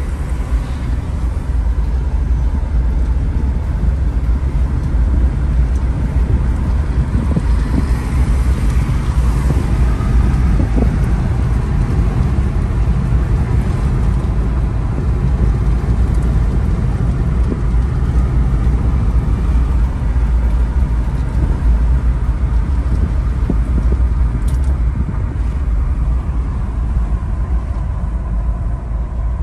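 Steady low rumble of road and drivetrain noise inside the cabin of a Jeep Wrangler 4xe plug-in hybrid driving at city speed, its engine running alongside the electric drive.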